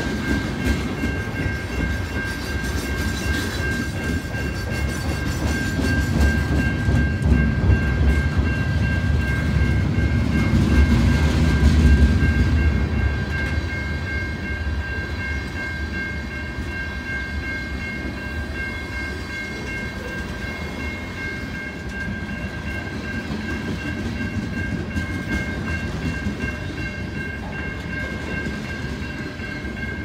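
Wheels of a long CN mixed freight train's cars (lumber flatcars, covered hoppers, boxcars) rolling past on the rails with a continuous rumble and clatter, loudest about a third of the way in. A steady high ringing from the level-crossing warning bell carries on over it throughout.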